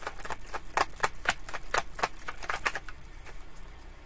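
Tarot deck shuffled by hand: a quick run of crisp card clicks, about five a second, thinning out after about three seconds.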